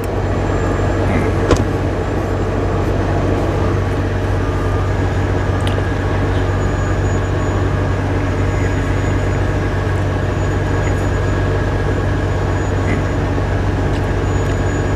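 Steady low drone of an idling semi-truck diesel engine, with a few light clicks on top, the sharpest about a second and a half in.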